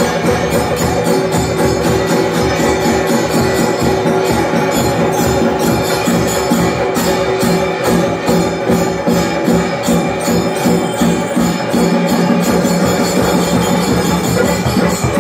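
Ritual music with fast, steady jingling percussion like bells and cymbals over held, droning low tones, played through an aarti with lamps.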